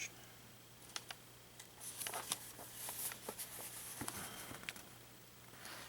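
Faint rustling and light clicks of a paper instruction manual being handled and its pages turned.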